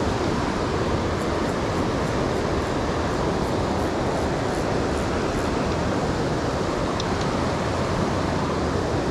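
The West Branch of the Ausable River running fast and steady, an unbroken rush of water.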